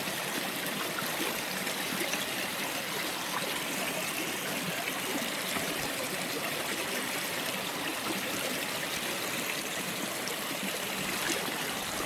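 Steady rush of a small river flowing over rocks, heard from just above the water.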